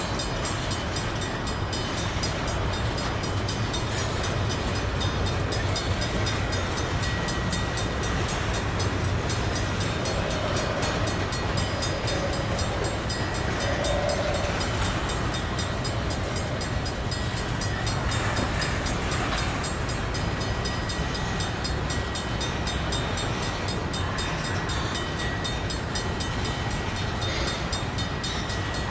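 Covered hopper grain cars of a freight train rolling past at steady speed: a continuous rumble and clatter of steel wheels on the rails, even in level throughout.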